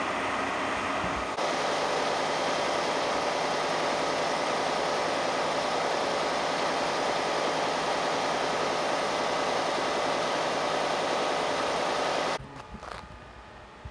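Steady engine idling with a constant hum; it stops suddenly near the end.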